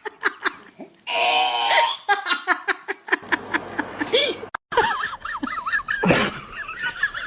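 People laughing in short, rhythmic bursts. After a brief break, a high, wavering squeaky call takes over.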